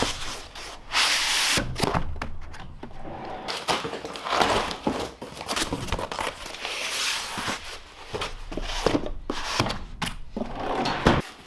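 Hand tools and their packaging being handled: irregular rustling and scraping with frequent knocks and clicks as tools are unpacked and set down.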